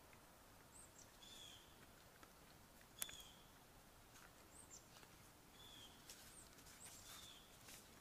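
Near silence with faint, short bird chirps repeating about once a second, and one sharp click about three seconds in.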